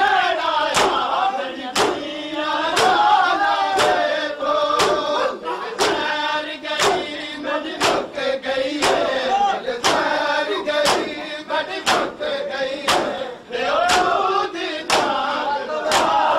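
A crowd of men chanting a noha in unison, with the sharp claps of open hands striking bare chests in matam keeping a steady beat about once a second.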